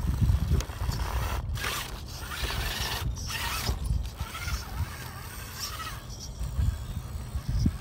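Gmade Komodo RC crawler's electric motor and geared drivetrain whining as it crawls up rock, the pitch rising and falling with the throttle, over a low rumble.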